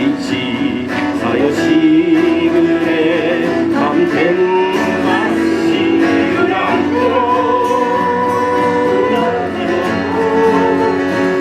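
Enka music: a backing track of strings and guitar with a sustained melody line that wavers in pitch, played at a steady, full level.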